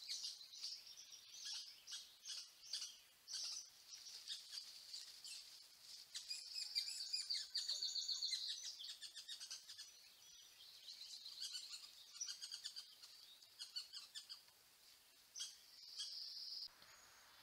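Songbirds singing outdoors: many short high chirps and trills, with a dense run of rapid repeated notes about six to nine seconds in.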